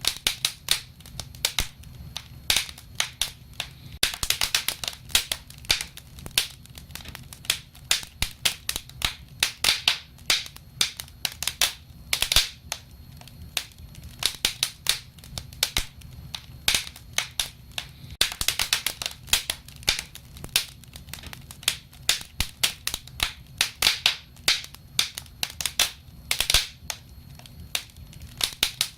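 Wood fire crackling: irregular sharp pops and snaps that come in thicker bursts every few seconds, over a faint low rumble.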